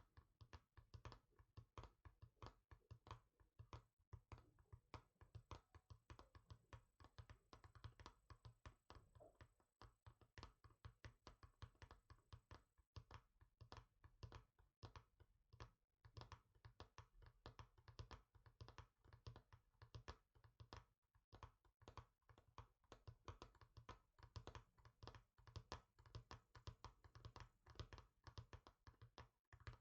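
Fingertips and nails tapping quickly and continuously on a hard surface, several soft taps a second in an uneven rhythm.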